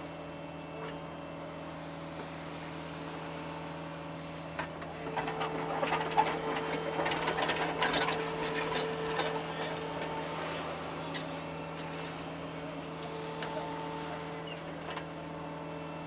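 John Deere 75 excavator's diesel engine running at a steady pitch. About five seconds in, a louder stretch of scraping and clattering lasts about five seconds, typical of the bucket digging into soil and stone.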